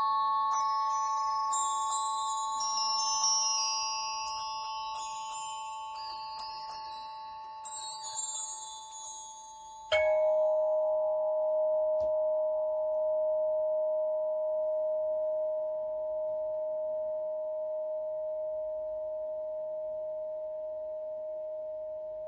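Meditation music: a held, steady drone chord under high, tinkling bell-like notes. About ten seconds in, the tinkling stops and the drone switches suddenly to a new, lower chord that holds steady.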